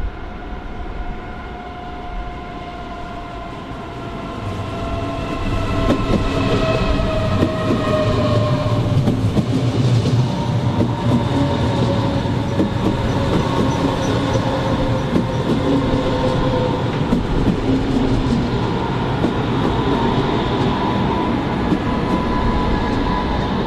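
Electric train passing close by. A whine of several tones falls slowly in pitch as it approaches, and from about six seconds in the wheels run loudly over the rails.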